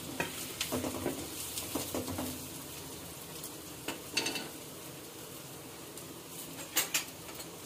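Vegetables sizzling as they stir-fry in hot oil in an iron kadhai, with a spatula stirring and scraping in the pan and knocking against it several times.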